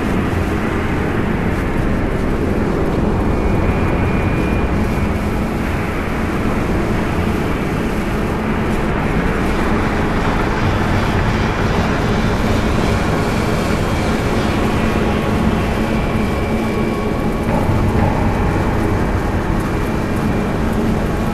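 Soundtrack music: a dense, steady drone, more like a wash of noise than melody, with a few faint held tones and no beat.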